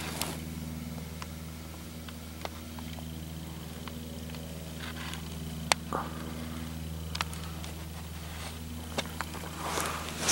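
A vehicle engine idling steadily, with a few scattered sharp clicks and snaps over it.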